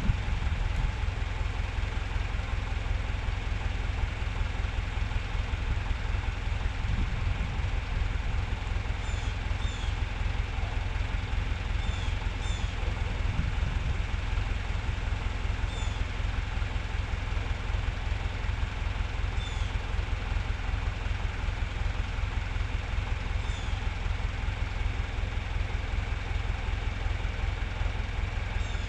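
Tractor engine running steadily with a low, even rumble.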